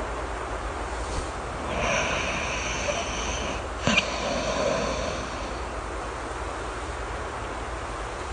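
Steady rain with a single snore over it. A drawn-in snore breath starts about two seconds in, a short sharp snort comes near the middle, and a breathy out-breath fades out by about five and a half seconds.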